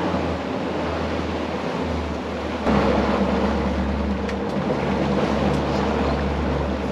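Twin Mercury Verado 250 hp V8 outboards running at trolling speed, with the wake's water rushing and wind on the microphone. The sound gets louder about two and a half seconds in.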